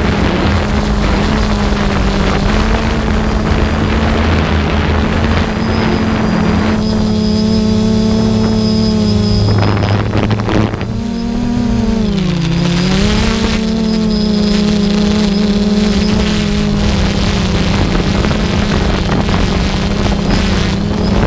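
Ultralight aircraft engine droning steadily in flight, with wind noise over the microphone. A gust of wind noise swells about ten seconds in, and the engine's pitch sags and comes back up soon after.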